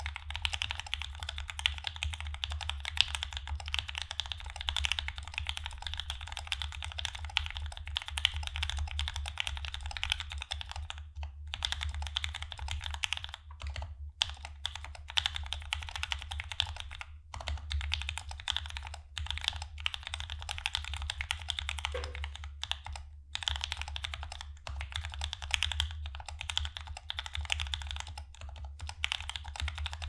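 Fast, continuous typing on a mechanical keyboard with Gateron Milky Yellow linear switches, an aluminium plate with plate foam and GMK keycaps: a dense clatter of keystrokes, broken by a few brief pauses about halfway through.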